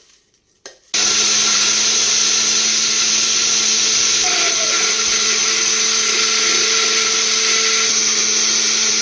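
Electric blender switched on about a second in and running steadily, grinding peppers, with a steady hum under the loud whir of the blades.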